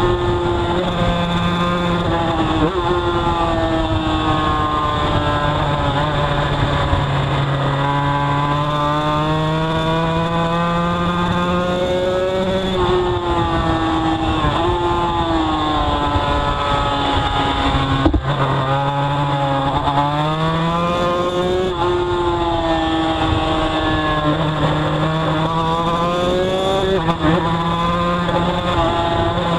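Two-stroke racing motorcycle engine running hard on track, heard from on board. Its pitch climbs through the gears and drops sharply for corners several times, with brief breaks at each shift.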